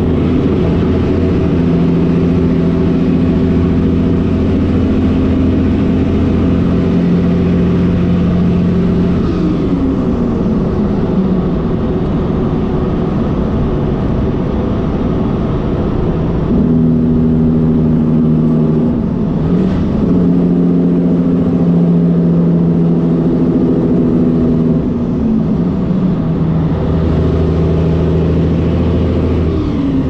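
Cabover Peterbilt semi truck's diesel engine running steadily under load, with a few brief falling glides in pitch.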